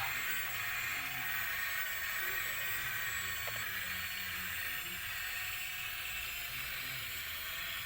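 Small electric motor and plastic gearbox of a radio-controlled toy truck or excavator whirring steadily.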